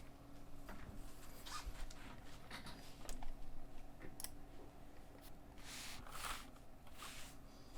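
Typing on an Anne Pro 2 mechanical keyboard with stock Kailh Box Red linear switches: irregular keystrokes, with a few longer runs of rapid keypresses around the middle and near the end.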